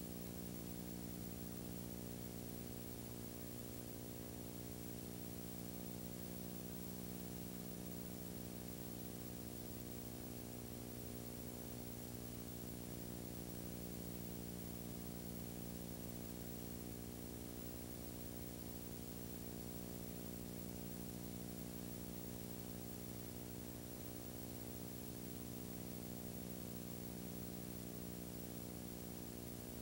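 Steady low electrical hum with a layer of hiss, unchanging throughout, with no other sound on it.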